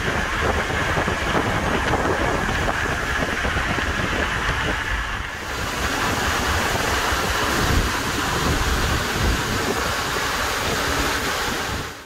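A moving passenger train heard from inside a carriage: a steady rushing of wind and wheel noise over a low rumble. About five seconds in, the hiss grows brighter and louder.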